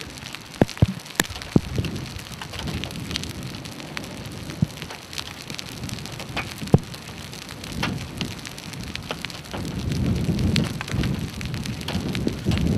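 Hail and rain pelting down: a steady patter broken by sharp, irregular ticks of stones striking nearby, with a louder low rumble building near the end.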